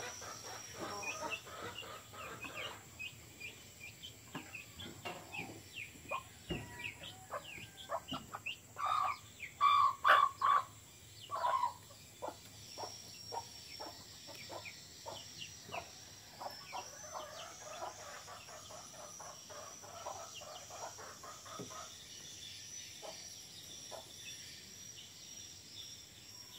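Chickens clucking, with many quick short peeps from chicks. A few much louder calls come about ten seconds in. A steady high insect buzz sounds beneath much of it.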